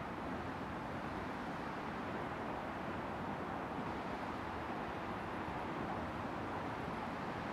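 Steady, even rushing noise, heaviest in the low and middle range, with no distinct events.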